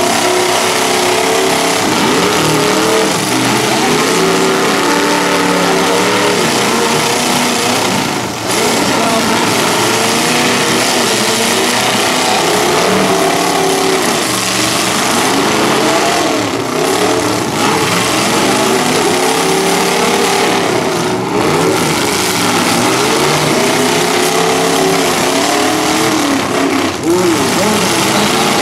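Several demolition derby cars' engines revving hard at once, their pitches rising and falling over one another as the cars push against each other and spin their wheels on the dirt.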